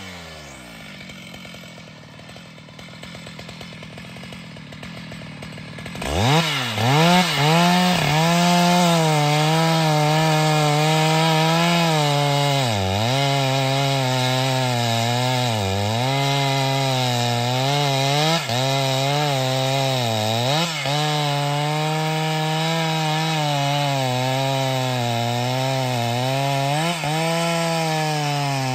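Stihl MS 881 two-stroke chainsaw idling briefly, then revved hard about six seconds in and run at full throttle through a large log, its engine pitch dipping again and again as the chain bogs down under load in the cut.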